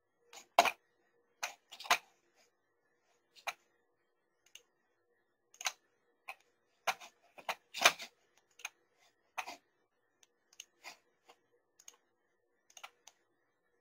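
Sparse, irregular clicks of a computer keyboard, a couple of dozen spread unevenly with short pauses between them, over a faint steady electrical hum.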